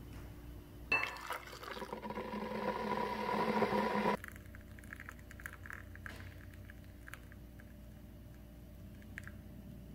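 Coffee poured into a small drinking glass: a clink, then about three seconds of pouring that grows louder as the glass fills and stops abruptly. Faint small splashes and ticks follow.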